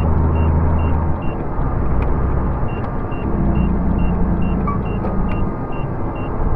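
A truck's engine running steadily, heard inside the cab, its low drone shifting in pitch about a second in. A short high beep repeats a little over twice a second throughout, pausing briefly, with a few faint rattles.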